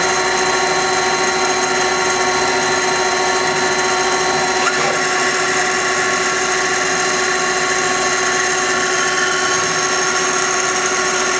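Citizen L16 Swiss-type CNC lathe's main spindle running steadily at about 4,000 RPM, with its rotary guide bushing gears turning: an even, high machine whine made of several steady tones.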